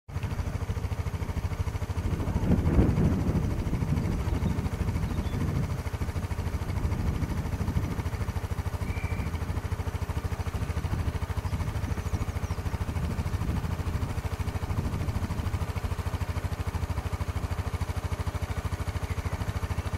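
Wind rumbling on the camera microphone: a steady low rumble that swells in a gust about two to three seconds in.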